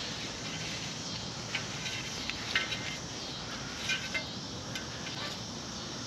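Soft nylon strap being handled and looped around an e-bike's front fork: light rustling and a few small clicks over a steady background hiss.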